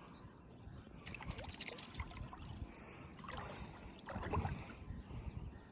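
Water sloshing and trickling, with a run of small knocks and clicks between about one and two seconds in, and two louder splashing swells later.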